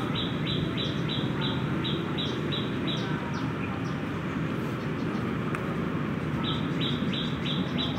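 A bird calling in a fast series of short, high, slightly falling notes, about three a second; it stops about three seconds in and starts again near the end. Steady low background noise runs underneath.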